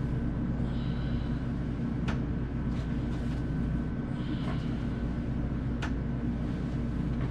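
Steady low mechanical rumble in the room, with a few faint clicks and creaks scattered through it.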